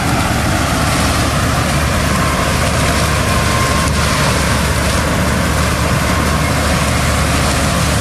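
Combine harvester running: a steady, loud engine and machinery noise that holds even throughout.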